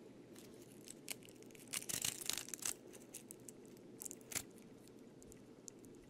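A cicada being picked up off a wooden table by hand: faint, brief scratchy crackles and clicks, in a cluster about two seconds in and once more past four seconds.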